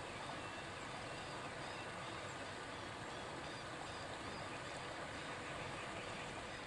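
Steady outdoor background noise, with a few faint high chirps in the first half.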